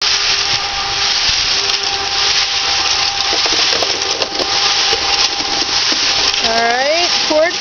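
Portable cement mixer running, its drum turning with a steady gritty churn and a faint motor hum, while wet concrete pours out of the tipped drum into a mortar pan.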